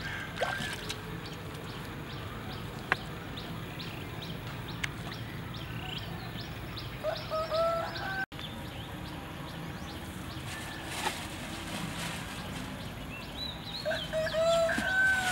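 Chickens calling twice, once about seven seconds in and again near the end, over a steady outdoor background with scattered short high clicks.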